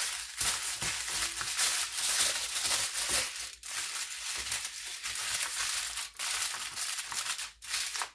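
Aluminium foil crinkling and crackling as hands press and crimp it down over the rim of a metal bowl, with a few brief pauses.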